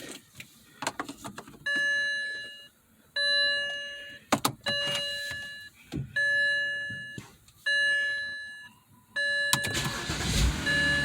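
2006 BMW 325i: a few clicks, then the car's warning chime dings over and over, about once every second and a half, and near the end the straight-six engine cranks and starts, its fuel pressure regulator newly replaced.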